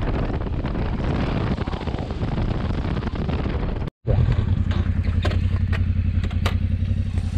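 Royal Enfield Himalayan 411's single-cylinder engine under way at road speed, mostly buried in wind and road noise. After a brief gap about four seconds in, the engine thumps steadily at low revs as the bike rolls slowly, with a few sharp ticks over it.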